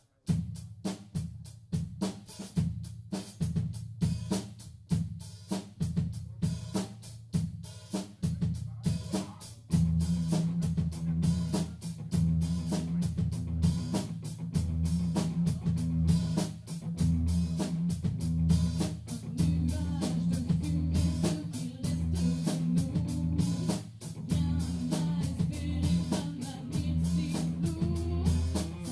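Band music starting abruptly with a drum-kit beat of snare and kick and a guitar. About ten seconds in, the sound fills out with sustained low notes under the beat, and it plays on without singing.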